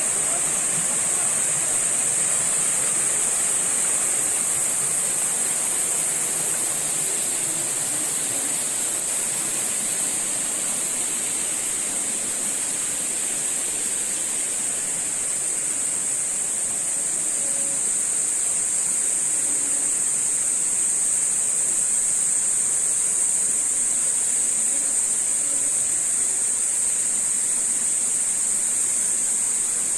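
Steady outdoor background noise: an even hiss with a constant high-pitched tone over it, unchanging throughout, and a few faint short sounds lower down.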